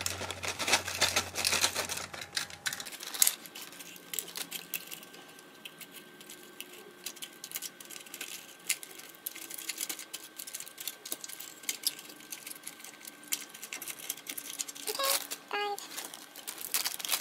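Light plastic clicks and taps in quick, irregular succession: plastic press-on nail tips being picked out and dropped into the compartments of a plastic storage container.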